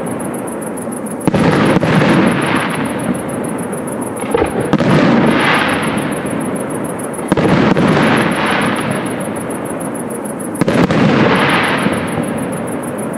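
Aerial firework shells bursting in a professional display: sharp bangs every two to three seconds, some in quick pairs, each followed by a long fading tail of crackle and rumble.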